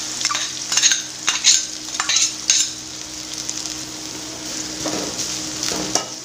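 Sliced onions sizzling in hot oil in an aluminium kadai, with a steel spatula scraping and clinking against the pan as they are stirred, several strokes in the first couple of seconds and again near the end.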